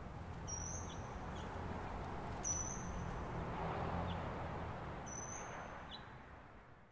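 A small bird repeating a short, high, thin call every couple of seconds over a low steady background rumble; the sound fades out near the end.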